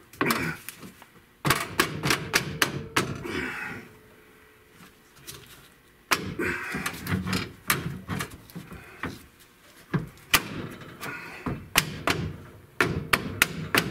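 A T-top trim piece being worked into the car's roof opening by hand: clusters of sharp knocks, clicks and short scrapes, with a quieter stretch about four seconds in.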